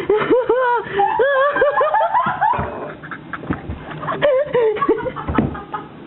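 A person laughing hard in quick, high-pitched cackles, with a pause in the middle and a shorter run of laughing again near the end.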